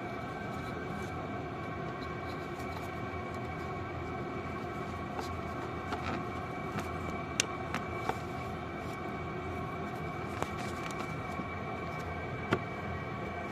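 Car engine running steadily, with a few sharp clicks scattered through it.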